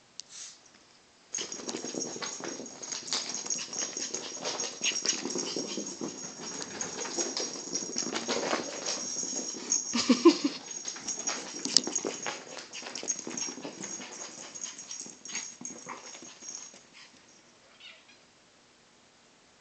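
Teacup Yorkshire terrier's vocal play noises and scuffling while play-fighting with a Bengal cat. It is a dense, rough stretch full of sharp clicks that starts about a second in, is loudest a little past the middle, and dies away near the end.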